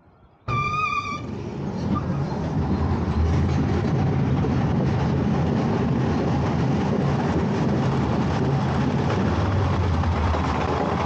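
A short buzzer-like tone, then the small SBF Visa family coaster train starts off and rolls steadily along its steel track: a continuous rumble with a low hum underneath.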